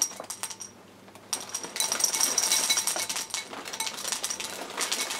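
Dry Cap'n Crunch's Crunch Berries cereal poured from the box into a ceramic bowl, the hard pieces rattling and clinking against the bowl. A short trickle at the start, then a steady pour from about a second and a half in.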